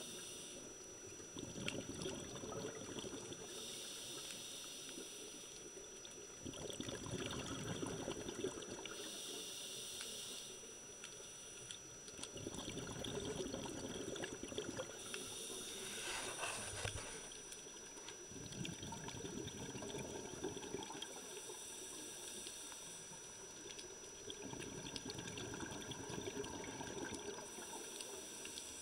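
Scuba diver breathing through a regulator underwater. A short hissing inhale is followed by a longer bubbling exhale, and the cycle repeats about every five to six seconds.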